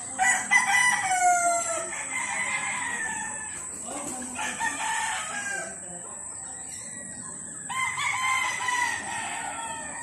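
Gamecock roosters crowing: one crow just after the start and another about eight seconds in.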